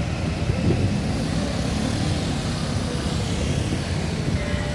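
Street traffic: motorcycle and pickup-truck engines running and passing close by, a steady low rumble.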